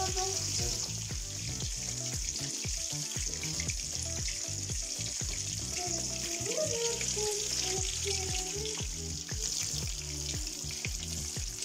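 Breaded chicken frying in oil in a pan: a steady sizzle throughout. Music with a steady beat plays underneath.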